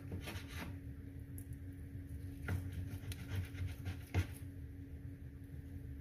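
Sharp kitchen knife sawing through a soft rolled dough log, with light taps as the blade meets the wooden cutting board about two and a half and four seconds in.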